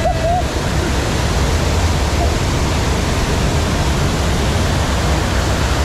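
Loud, steady rush of churning water from the river rapids channel, heard from aboard a round rapids raft.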